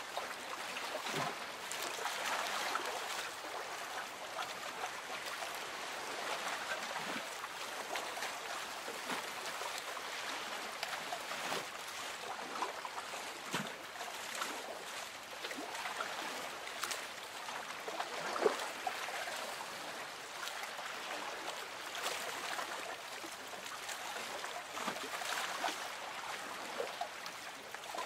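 Water lapping gently against a small boat's hull: a steady wash with small irregular splashes and trickles, one slightly louder splash about eighteen seconds in.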